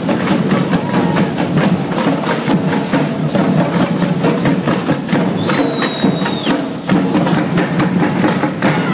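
Drumming on a strap-hung, metal-shelled drum, a fast steady beat of sharp strokes, with a high steady note held for about a second midway.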